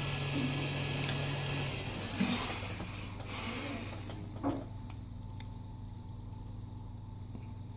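Rustling and handling noise of small objects being moved about, then three light clicks about halfway through.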